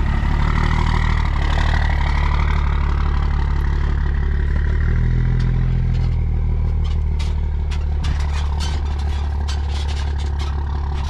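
Truck engine running steadily with a low, even hum. In the second half there is a scatter of light clicks.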